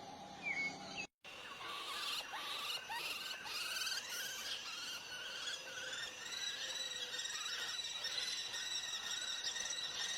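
Wild birds calling: short, high-pitched overlapping chirps and squeals, a dense chorus that starts abruptly after a break about a second in.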